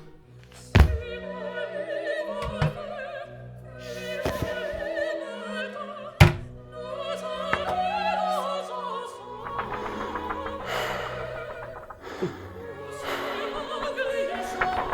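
Operatic singing with sustained accompanying music, broken by sharp thuds: a loud one about a second in, another about six seconds in, and a few lighter knocks.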